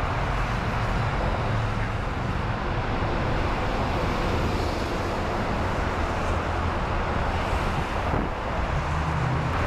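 Steady rumble of road traffic crossing the bridge deck overhead, a constant noise with a low hum.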